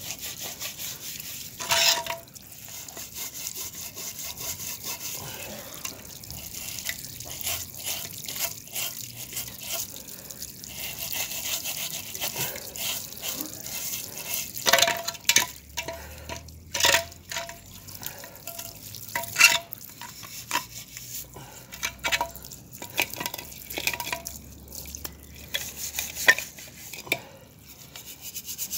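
Water from a garden hose running and splashing as a metal fuel tank is scrubbed and rinsed of paint stripper, with irregular scrubbing strokes and a few sharper knocks of the tank against the paving.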